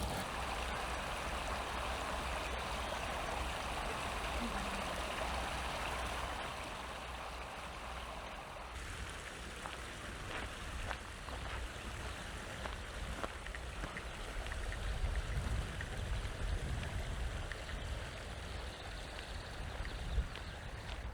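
Mountain stream flowing, a steady rush of water that eases off after about eight seconds, with some low rumbling and a few light knocks later on.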